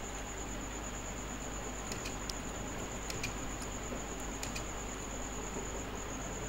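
Computer mouse clicking: a scattering of short, sharp clicks at irregular intervals, as run-stitch points are placed one by one. Underneath is a steady hiss with a thin, high-pitched whine.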